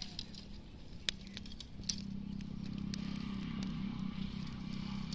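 Small open wood fire of dry twigs crackling, with two sharp snaps about a second and two seconds in, over a low steady hum.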